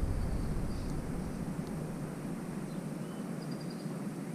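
Outdoor background noise, a steady hiss with some low rumble that fades in the first second, and a faint, high, quick bird trill about three and a half seconds in.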